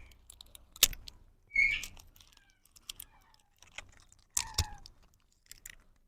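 Scattered sharp clicks and taps with a few short high chirps from young parrots.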